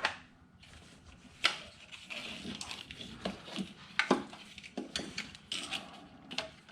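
Battery cable in plastic wire loom being handled and routed: scattered sharp clicks and knocks with scratchy rustling between them.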